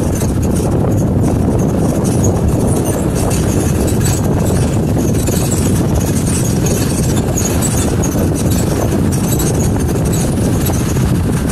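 Pickup truck driving on a rough dirt and gravel road: a steady, loud rumble of tyres and body over the track, with crackling from gravel under the tyres.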